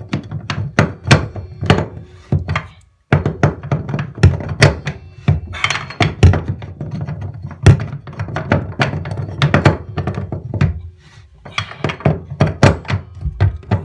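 Metal wrench and drain extractor tool knocking and clanking against a chrome bathtub drain flange as the drain is turned tight. A quick, uneven run of knocks, with a brief pause about three seconds in.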